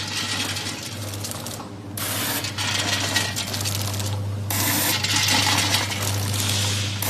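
Vertical granule pouch packing machine running in cycles: a steady hum with a burst of rattling about every two and a half seconds, as nuts drop into each pouch.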